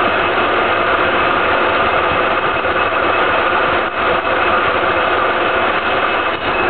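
Soviet 1K62 engine lathe running at 1250 RPM, its spindle drive giving a steady mechanical drone with several faint steady tones, under the hiss of a carbide tool turning a medium-carbon steel (SAE 1040) bar. The loudness dips briefly around four seconds in and again near the end.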